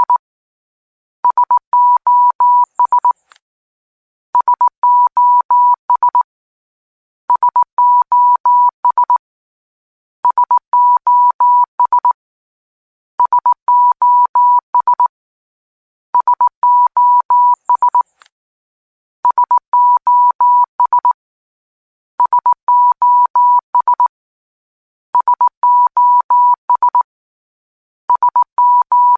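Morse code sent as a steady tone near 1 kHz, keyed in quick short and long beeps. The beeps come in groups of about two seconds, each followed by a short gap, repeating about every three seconds.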